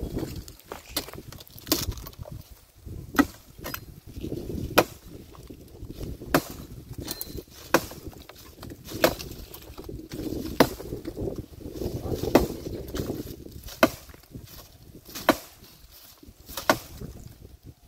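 A hand axe chopping into a living tree branch: about ten sharp strokes, one roughly every second and a half, with leaves rustling between them.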